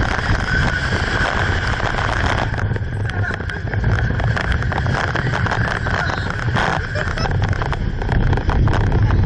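A vehicle running steadily with a low rumble, with wind noise on the microphone.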